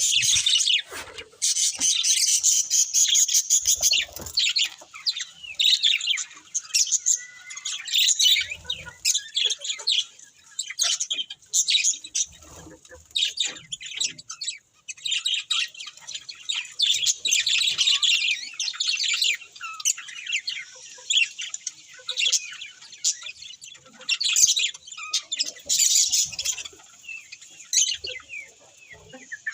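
Budgerigars chirping and warbling in a rapid, busy chatter of short high notes, with brief lulls.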